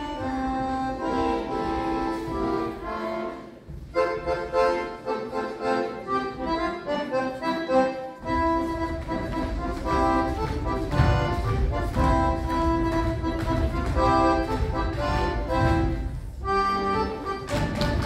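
Accordion folk dance music, with a brief break about four seconds in and a fuller, heavier low end from about eight seconds in.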